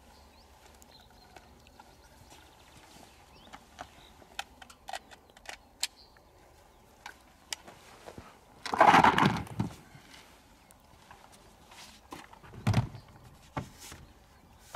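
Scattered clicks and light knocks of a hunting rifle and its gear being handled, with a louder scraping rustle lasting about a second, about nine seconds in, and another knock a few seconds later.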